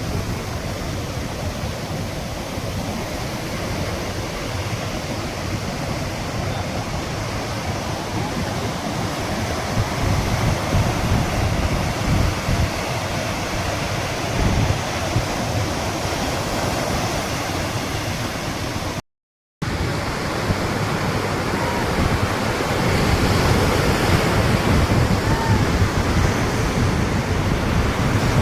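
Heavy sea surf breaking on a beach: a steady roar of waves with swells in loudness. It cuts out for a moment about two-thirds of the way through.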